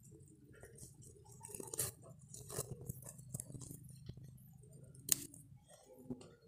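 Scissors snipping the stems of rice paddy herb, several sharp clicks spread out among the rustle of the leafy stems being handled. A faint steady low hum runs underneath and stops near the end.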